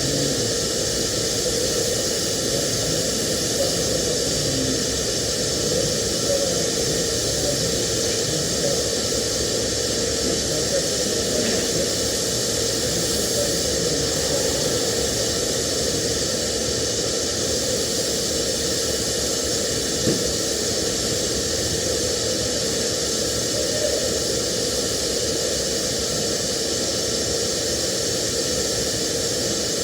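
TIG welding arc running with a steady, even hiss.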